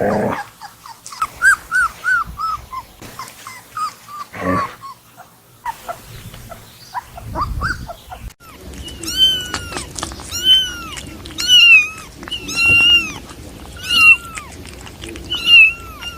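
Kittens meowing: quick, thin mews in the first half, then after a cut a kitten mewing loudly and repeatedly, about once a second, each cry rising and falling in pitch.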